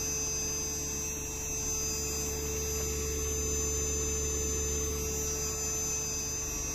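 Steady hum of an inverter air conditioner's compressor running under load, driven by its outdoor inverter board, with a constant mid-pitched tone.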